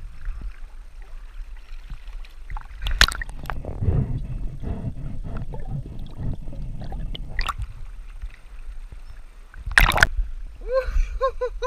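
Water splashing and sloshing with knocks and bumps of handling as a large freshwater corvina is pulled from the river at night; a sharp knock about ten seconds in is the loudest sound.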